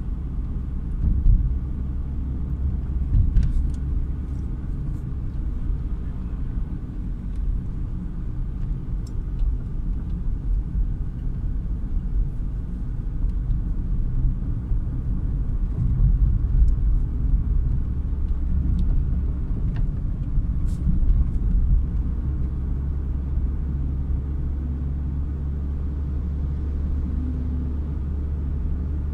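Car cabin road noise while driving: a steady low rumble of tyres and engine heard from inside the car.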